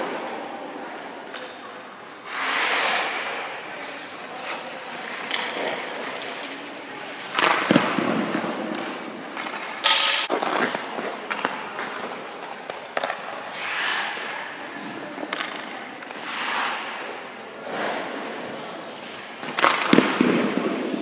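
Hockey goalie's skates scraping and pushing on ice, and leg pads dropping and sliding on it, in several separate pushes a few seconds apart, with a sharp clack about ten seconds in.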